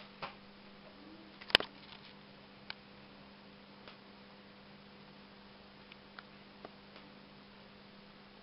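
Faint steady electrical hum with scattered sharp clicks and snaps, the loudest about a second and a half in, as flyback high voltage arcs across the broken filament of a burned-out car bulb.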